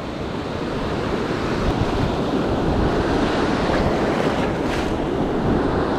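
Ocean surf washing in over the sand, a steady rush with wind rumbling on the microphone.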